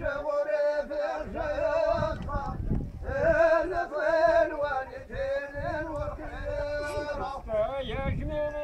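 A man singing a folk song, a wavering line of long held, ornamented phrases, with a low rumble underneath.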